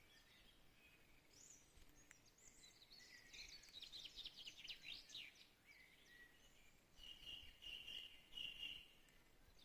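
Faint birdsong in a forest: a quick run of chirps about three to five seconds in, then a steady high trill repeated twice near the end, over a soft background hiss.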